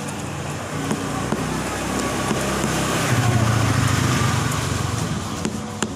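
A motor vehicle passing by, its engine and road noise growing louder to a peak midway and then fading. A couple of sharp clicks come near the end.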